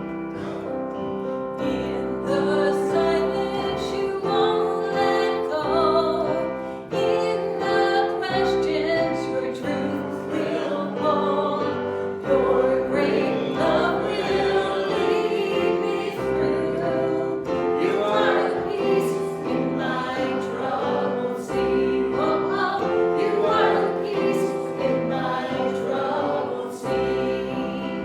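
A congregation singing a worship song together, accompanied by piano.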